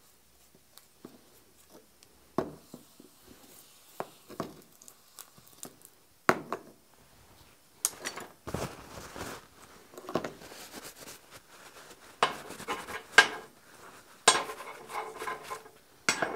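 Scattered clinks and knocks of forged steel hooks handled on a steel bench top as hot paste wax is brushed onto them and wiped off with a rag, with short bouts of rubbing and scraping. The clatter gets busier in the second half.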